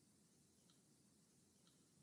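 Near silence: faint room tone, with two very faint clicks about a second apart.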